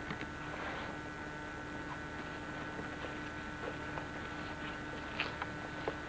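Steady hum with a few thin high tones held underneath, and scattered faint clicks and scuffs; the sharpest clicks come about five seconds in.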